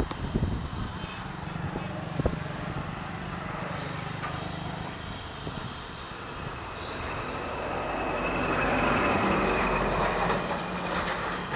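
Steady mechanical noise with a low hum, growing louder for a few seconds past the middle and then easing off.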